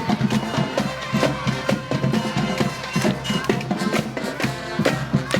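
Music with a steady drum beat, bass and snare drum strikes several times a second under sustained pitched instruments.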